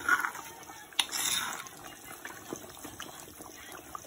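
Aloo gosht curry simmering in a steel pot, bubbling with a wet crackle and small scattered pops. There is a sharp click about a second in, followed by a short hiss.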